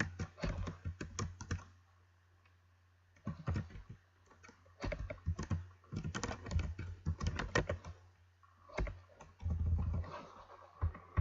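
Typing on a computer keyboard in several short bursts of rapid key clicks with brief pauses between them, over a steady low hum.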